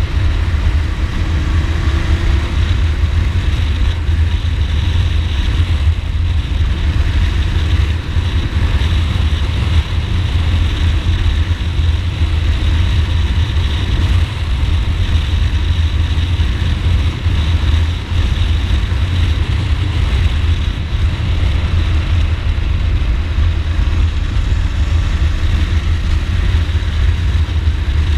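Ducati Multistrada motorcycle running at a steady pace while being ridden, with a heavy, even low rumble throughout.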